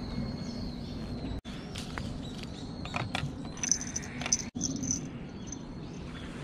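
Outdoor shoreline ambience: a steady low hum with faint high chirping. Through the middle come a few sharp clicks and rustles as fishing line and tackle are handled.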